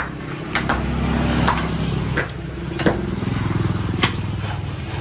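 An engine running steadily, with sharp knocks of tools striking at uneven intervals, about six in all.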